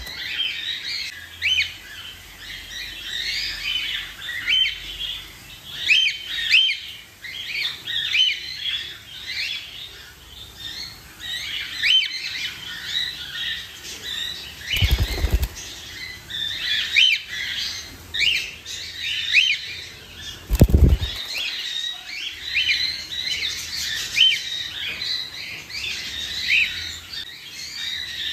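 Baby cockatiels chirping: a steady stream of short, rising chirps in quick succession. Two brief low thuds come about halfway through and again a few seconds later.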